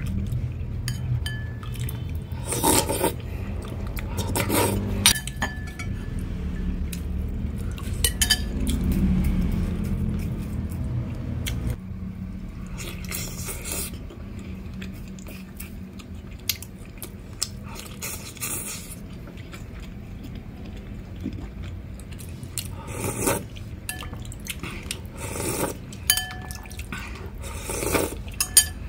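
Metal spoon clinking and scraping against a ceramic soup bowl, with short slurping and eating noises of broth and chicken taken from the spoon every few seconds, over a steady low hum.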